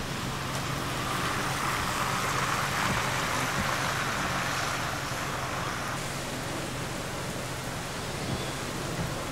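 Steady rushing of storm rain and wind from a tropical storm band, swelling louder for several seconds starting about a second in, then easing back.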